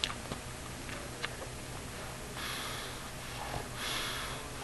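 Pug snoring in his sleep: two noisy, hissing breaths about a second and a half apart in the second half, with a few faint clicks before them.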